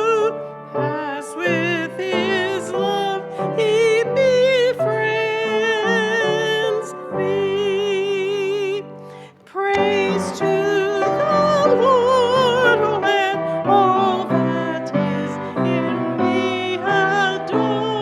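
A song of praise sung with strong vibrato to piano accompaniment, in held phrases with a short break about halfway through.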